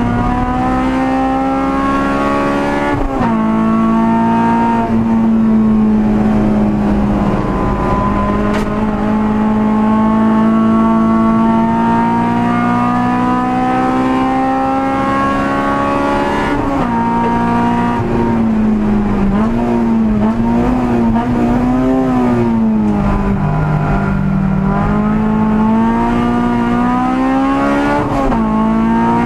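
Honda Civic EG6 race car's four-cylinder VTEC engine at full race pace, heard from inside the cabin. It climbs in pitch under acceleration, drops sharply at gear changes about 3 and 17 seconds in, wavers and falls lower around the middle, then climbs steadily again.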